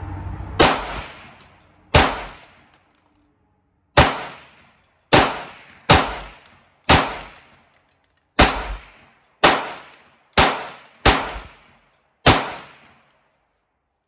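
Eleven semi-automatic shots from an AR-15 rifle with a Bear Creek Arsenal .22 WMR (.22 Magnum) upper, fired at an uneven pace about a second apart, each a sharp crack with a short ringing tail. The rifle keeps cycling shot after shot without a stoppage.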